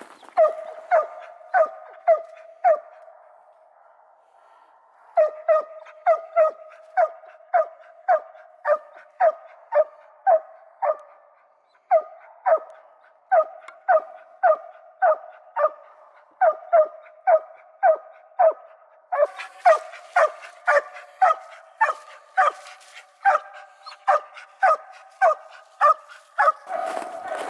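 A hunting dog barking steadily in a regular chop, about two barks a second, with two short pauses. From about two-thirds of the way through, the barking becomes denser and fuller.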